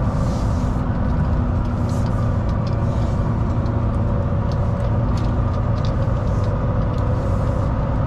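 Volvo VNL semi truck's diesel engine heard from inside the cab, running steadily at low road speed with a constant drone.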